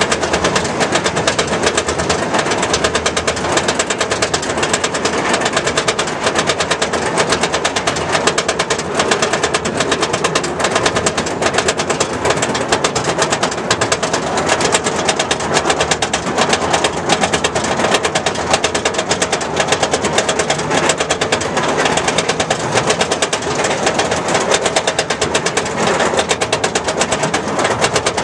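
Goliath roller coaster train climbing its chain lift hill: a rapid, steady clacking from the lift chain and the anti-rollback ratchet beneath the cars.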